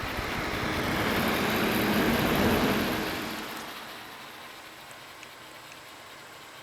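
Running Asus P5K PC with a Xeon X5450: a rushing noise swells over the first few seconds, then drops away, leaving a quieter hum with a faint thin high whine. Under load this board's chokes whistle.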